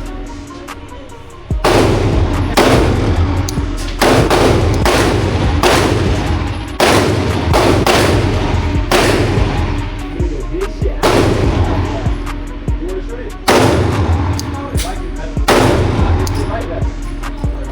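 9mm Glock pistol fired shot after shot, roughly one shot a second, each shot followed by a long echoing tail.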